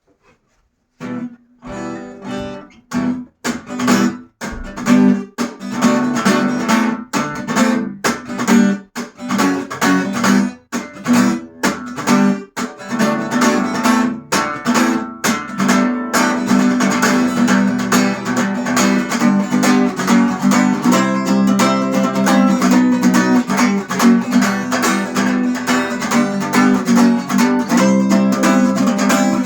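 Acoustic guitar playing a song intro: after a second of silence, single chords and plucked notes, settling into steady, even strumming about halfway through.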